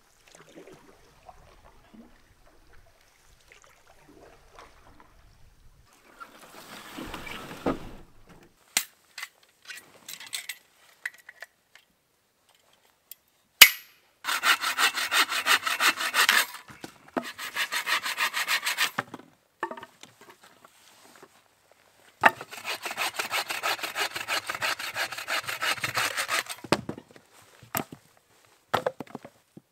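Hand saw cutting through a piece of dead wood in three bouts of rapid back-and-forth strokes, starting about halfway through, with the longest bout near the end.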